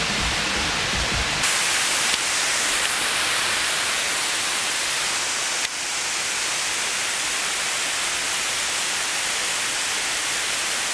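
Steady rushing of a waterfall and flowing river water, heard as a constant even hiss. Background music carries over for about the first second and a half, then stops.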